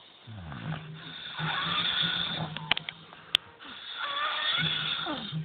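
Snoring: two long snoring breaths about two seconds apart, with a single sharp click in the lull between them.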